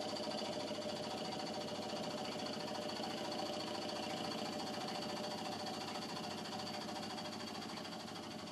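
A man imitating a helicopter with his mouth alone: a steady, rapid chopping drone that eases off slightly near the end.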